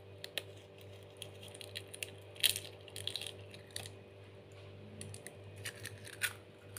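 A hen's egg cracked and pulled apart by hand over a plastic bowl: a few short crisp cracks and crackles of eggshell, the loudest about two and a half seconds in, over a faint steady hum.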